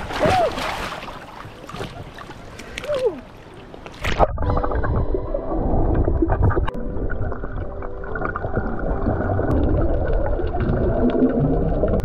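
Water splashing around an action camera as a snorkeler slips over the side of an inflatable dinghy. About four seconds in the camera goes under with a sharp knock, and the sound turns to a muffled underwater rush of moving water and bubbles.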